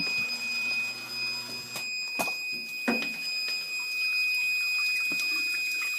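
Backup sump pump's battery alarm sounding a steady high tone, over faint water trickling in the sump pit. A few sharp knocks about two seconds in.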